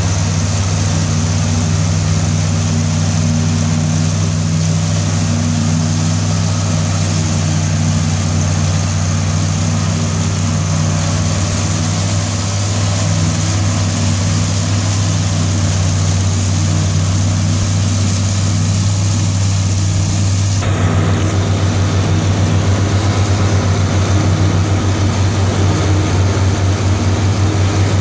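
International Harvester 806 tractor's six-cylinder engine running steadily under load, driving a pull-type forage harvester chopping standing corn. The steady drone changes abruptly about two-thirds of the way in, turning slightly louder with a fast pulsing.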